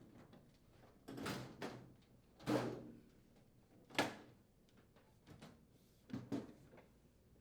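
Sheet-metal cabinet cover of a microwave oven being slid back into place: a string of short scrapes and clunks, the loudest about two and a half seconds in, with a sharp knock about four seconds in.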